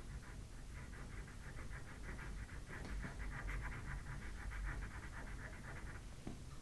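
Pastel pencil scratching on Pastelmat paper in quick back-and-forth shading strokes, about eight to ten a second, stopping about six seconds in.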